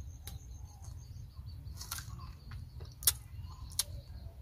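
Crisp crunching as a raw young tamarind pod is bitten and chewed: a few sharp cracks, the loudest about three seconds in. A bird chirps in the background over a low steady rumble.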